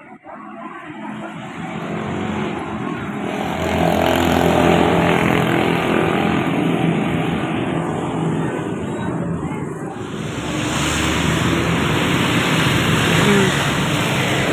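A large tour bus driving past, its engine and tyre noise swelling from about two seconds in and staying loud, growing brighter and hissier near the end.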